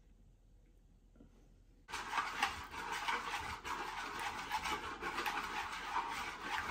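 A utensil scraping rapidly against a wooden salad bowl as Caesar dressing is whisked, a fast run of rough rubbing strokes. It starts suddenly about two seconds in, after a near-silent moment.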